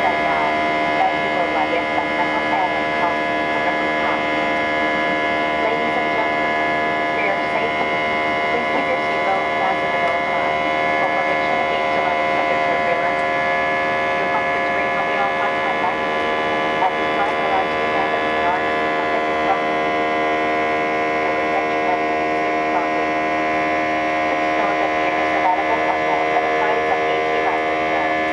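Cabin noise inside an Airbus A320 climbing after takeoff: a steady engine drone with several fixed tones held over a low rush of air.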